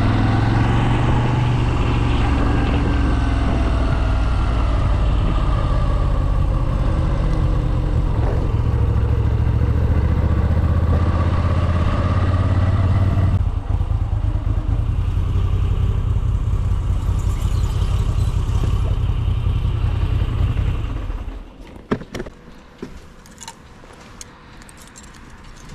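Moto Guzzi V7 850 Special's air-cooled V-twin through its stock exhaust, heard from a microphone inside the rider's helmet, running with pitch rising and falling as it is ridden. It eases off about halfway, then the engine sound stops about five seconds before the end, leaving a few light clicks.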